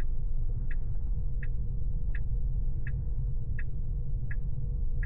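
Tesla's turn-signal indicator ticking evenly in the cabin, about seven ticks over five seconds, over a steady low rumble of road noise from the moving car.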